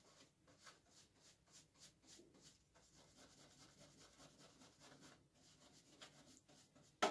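Cloth scrubbing stainless steel in quick, repeated strokes, faintly, as cleaner loosens coffee-oil residue around the roaster's valve. A sharp click near the end.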